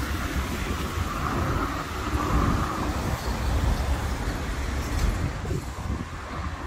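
Road traffic passing on a wet city street: cars and a box van driving by, their tyres hissing on the wet asphalt over a steady low rumble.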